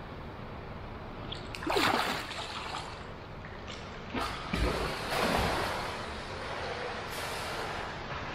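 A swimmer pushing off the pool wall, splashing loudest about two seconds in, followed by the repeated splashing of front-crawl arm strokes and kicks.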